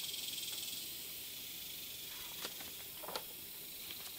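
Insects buzzing outdoors in a steady high hiss that swells and then eases off in the first second. A few soft clicks and rustles of the book being handled come about two and three seconds in.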